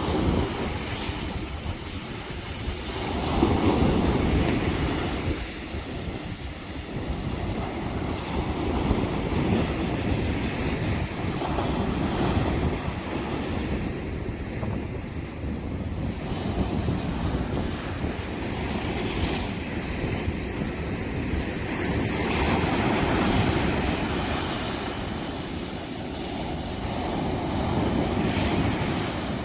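Sea surf breaking and washing up the shore, swelling and fading every several seconds, with wind rumbling on the microphone.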